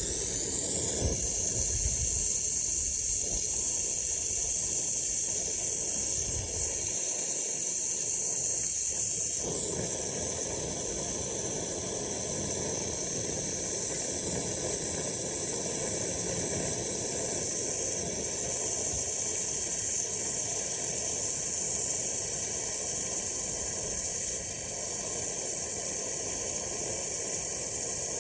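Gas brazing torch flame hissing steadily as it heats thin metal.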